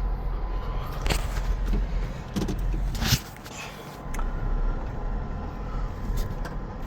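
Tow truck running, heard from inside the cab: a steady low engine and road rumble, with two brief knocks about one and three seconds in and a short dip in level just after the second.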